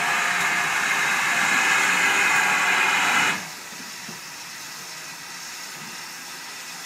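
Steam locomotive at rest venting steam: a loud, steady hiss that cuts off suddenly a little over three seconds in, leaving a fainter hiss.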